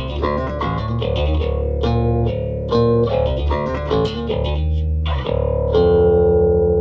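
Mayones multi-scale electric bass, tuned low, playing a fast picked lick of repeated notes, then a held note ringing out from about five seconds in.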